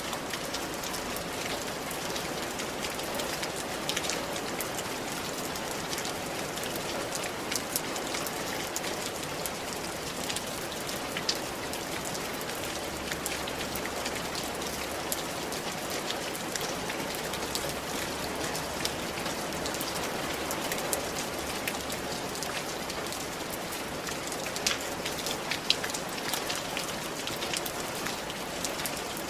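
Steady rain falling on a tiled roof, an even patter with scattered individual drops ticking on the tiles, a couple of them louder near the end.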